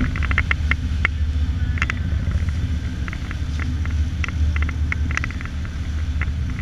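Motorboat engine running with a steady low rumble, with light, irregular clicks and taps over it.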